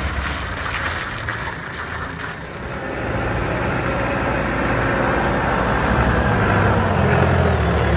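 Diesel engine of a Stocka 3060 forklift running as the forklift drives, its low steady drone dipping briefly about two seconds in, then growing louder as the forklift comes closer.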